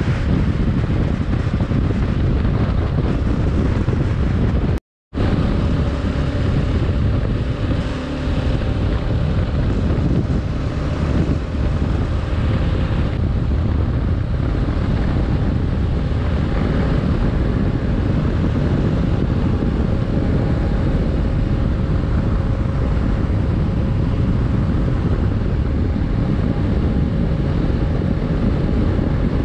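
Wind rushing over the microphone at highway speed, with the Kawasaki KLR 650's single-cylinder engine running steadily underneath. The sound drops out completely for a moment about five seconds in.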